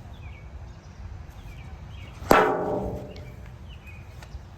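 One sharp, hollow crack of a plastic wiffle ball being struck, a little over two seconds in, with a brief ringing tail that fades quickly.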